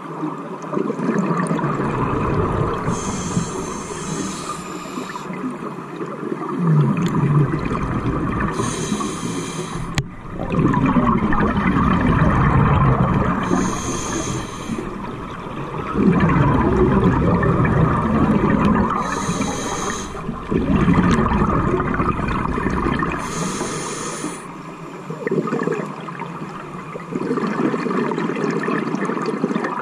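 Scuba diver breathing through a regulator underwater, about five breaths. Each breath has a short hissing inhale, then a longer rush of exhaled bubbles.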